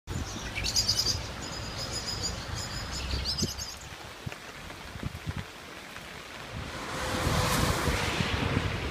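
Outdoor ambience in rain: a low rumble with a few short high chirps in the first few seconds, then from about seven seconds in a rising rush of wind on the microphone.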